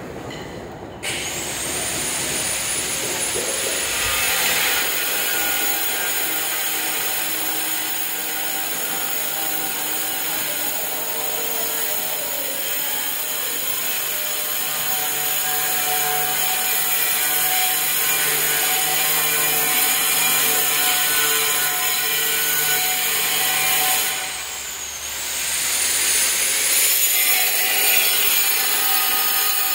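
Electric angle grinder cutting ceramic floor tile: its high whine climbs as it spins up about a second in, then runs on steadily with a grinding noise. Near the end it slows, its pitch dropping, and spins back up about two seconds later.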